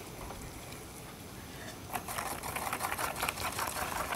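A chopstick scraping rapidly around a metal ladle, stirring dalgona sugar. The fast, even scraping starts about two seconds in.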